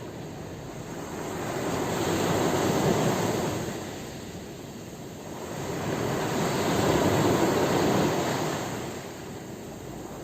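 Sea waves washing in, two swells of surf that rise and fade back.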